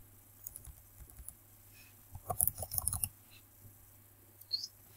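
Typing on a computer keyboard: a quick run of keystrokes about two seconds in, with a few scattered clicks before and after.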